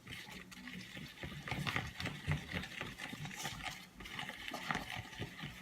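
Thick body wash and toothpaste mixture being stirred in a bowl with a mixing tool: irregular wet squelches and clicks of the tool against the bowl.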